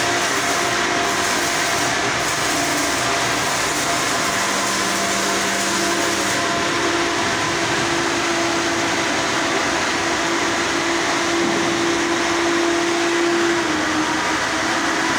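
Steady machinery noise aboard a ship, with a constant hum running under it. The highest hiss drops away about six seconds in.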